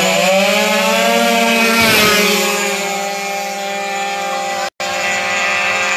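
Small two-stroke Honda Dio racing scooter engine at full throttle down the drag strip. It runs at a high, nearly steady screaming pitch after rising at launch, and the sound cuts out for an instant near the end.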